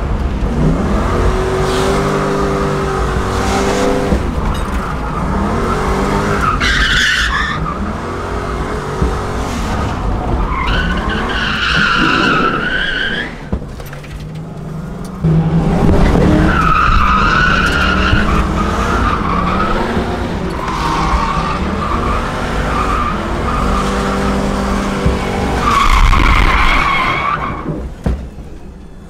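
Ford Mustang V8 revving up and down hard while drifting, heard from inside the cabin. The tyres squeal in several long slides, the last near the end.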